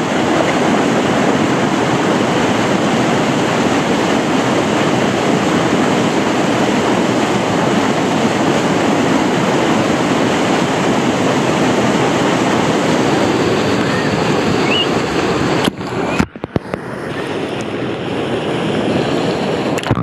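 Whitewater rushing and churning in the rapids of a wild-water slide channel, a loud steady rush. About three-quarters of the way through it drops out briefly, then comes back somewhat quieter.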